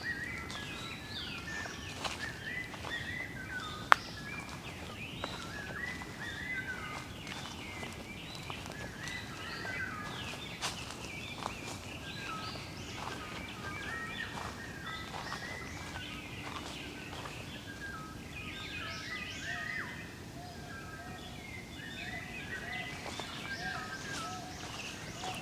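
Several small songbirds chirping and twittering over one another, with a second, lower-pitched call repeating in the later half. A single sharp click stands out about four seconds in.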